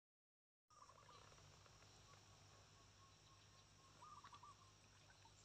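Near silence: a brief dead-silent gap, then faint outdoor background with a low steady hum and a few short, faint chirping calls, about a second in and again around four seconds.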